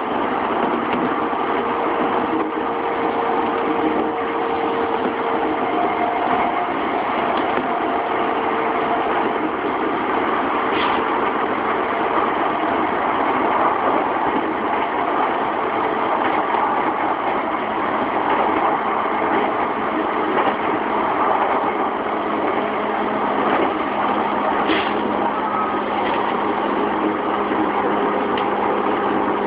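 Running noise inside a JR East E233-3000 series electric train's motor car at speed: a steady rumble of wheels on the rails with a faint hum from its inverter-driven traction motors, and a couple of light clicks, one near the middle and one near the end.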